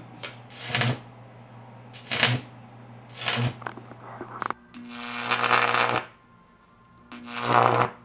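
Microwave oven transformer's high-voltage arc, drawn from its terminal with a probe, striking and going out five times. Each strike is a harsh crackling buzz, and the fourth lasts about a second and a half. A faint steady transformer hum carries on between strikes.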